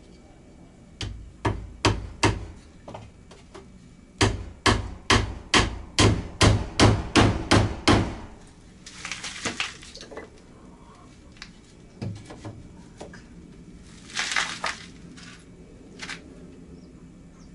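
Hammer driving nails into wooden laths: a few blows about a second in, then a steady run of about a dozen strikes at roughly three a second. Later come two short bursts of rustling noise and a few single taps.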